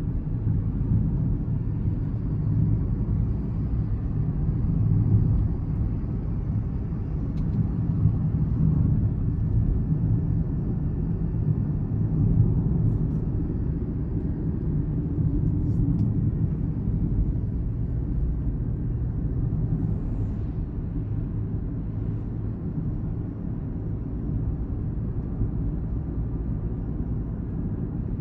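Steady low rumble of road traffic heard outdoors, with no distinct pass-by or horn standing out.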